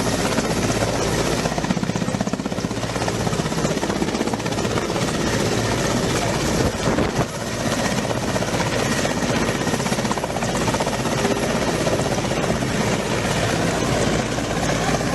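Helicopter running, its rotor blades giving a steady, rapid chop with the engine's whine underneath, with a brief drop in level about halfway through.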